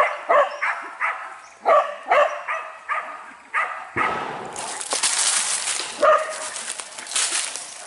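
Hunting dog held on a leash, giving quick high yelping barks about two a second. About four seconds in a loud rustling hiss takes over, with one more yelp.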